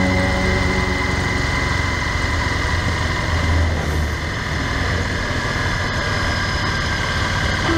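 Honda Varadero's V-twin engine running steadily under way, heard with a dense, even rush of road and wind noise.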